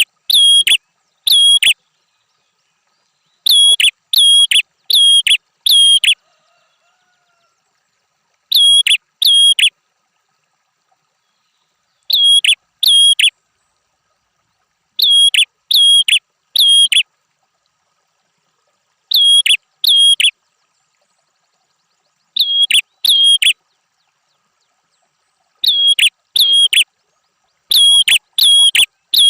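Prenjak (prinia) giving its loud, sharp repeated call: short bouts of two to five identical, clipped notes at about two or three a second, each bout followed by a silence of two to three seconds.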